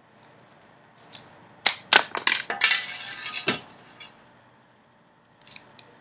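A quick run of sharp plastic clicks and snaps, with a crackling stretch in the middle, as the parts of a homemade mechanical-pencil BB gun are worked by hand. It starts a little under two seconds in and ends with one last snap about a second and a half later.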